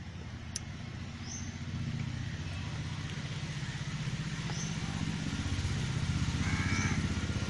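A vehicle engine running steadily with a low, rapid throb that grows gradually louder. A few faint bird chirps sound over it.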